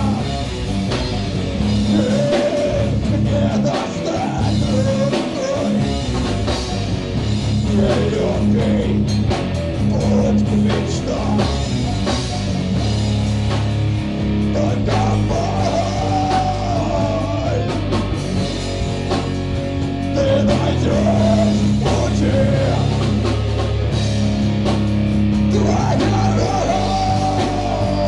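Heavy metal band playing live: electric guitars and a drum kit, with a vocalist singing into a microphone over them.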